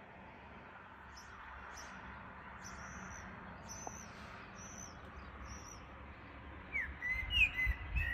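Small birds singing against a faint steady hiss: a thin, high call repeated about once a second, then louder, lower chirps near the end along with some low rumble.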